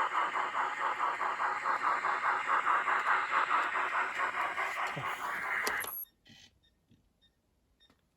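Recorded steam-exhaust chuffing from the small speaker of an N-scale Big Boy model locomotive's DCC sound decoder: a rapid, even beat of chuffs that cuts off abruptly about six seconds in, followed by a few faint clicks. The cutoff is the locomotive derailing and losing track power.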